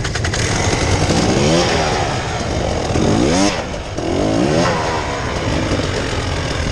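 Off-road vehicle engine revving, its pitch climbing and dropping several times, with the sharpest climb about halfway through.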